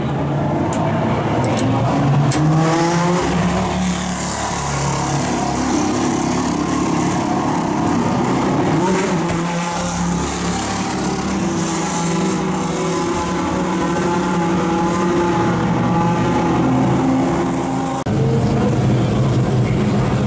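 GT3 race car engines running at idle, with a few brief rises in revs. Near the end the sound cuts abruptly to a louder, steady low engine note.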